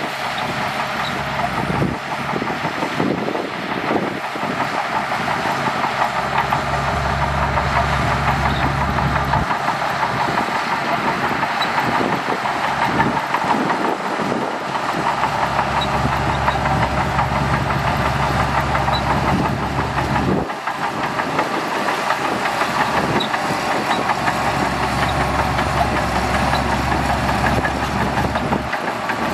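Shantui DH17C2 bulldozer's diesel engine running with a steady mechanical clatter while pushing sand. Its low rumble swells and drops back several times, with a short dip about two-thirds of the way through.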